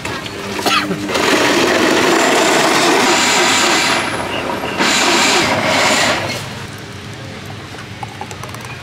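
Electric blender running, blending a fruit shake: it runs for about three seconds, dips briefly, runs again for about a second and a half, then stops a little past halfway.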